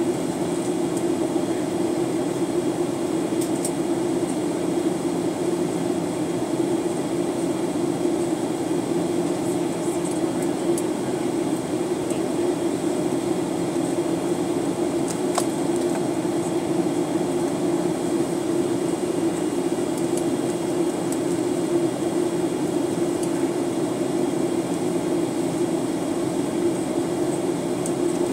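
Steady cabin noise of a Boeing 737-900ER in flight on descent: its CFM56-7B engines and the airflow make an even, unchanging hum with a strong low drone and a faint high whine. A couple of faint ticks come about 4 and 15 seconds in.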